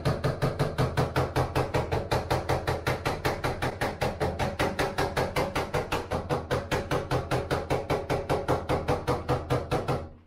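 Rapid, very even knocking, about five or six strikes a second, going on for some ten seconds and cutting off suddenly near the end.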